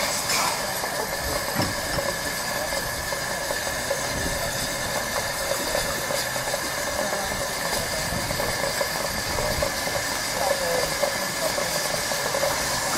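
Steady hiss of steam escaping from a standing one-third-size 15-inch gauge 4-6-2 Pacific steam locomotive.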